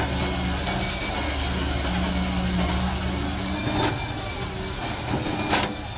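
Wheeled excavator's diesel engine running steadily as it works its hydraulic boom. There are two knocks, one about four seconds in and a louder one near the end, as the bucket digs into stony soil.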